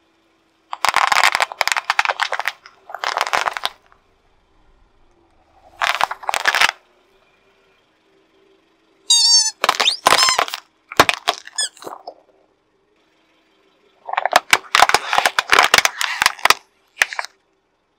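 A car tyre crushing things on asphalt. Bubble wrap pops in rapid crackling runs about a second in and again around three seconds, with another short crackling run near six seconds. Squeaky rubber toys let out a few high wavering squeals around nine to ten seconds, and plastic crackles as it is flattened from about fourteen to seventeen seconds.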